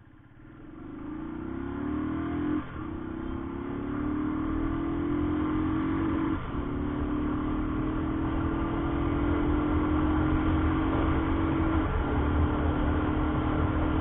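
Royal Enfield Thunderbird 350's air-cooled single-cylinder engine accelerating hard at full throttle. Its pitch climbs steadily in each gear, with three upshifts, about three seconds in, about six seconds in and near the end, each dropping the revs briefly. The engine grows louder throughout.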